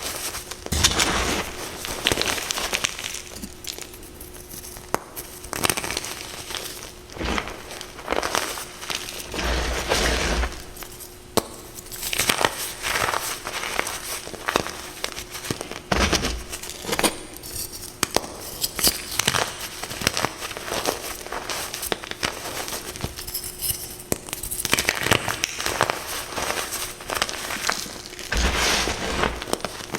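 Reformed gym chalk being crushed, with crisp crunching and crackling in irregular bursts and sharp snaps.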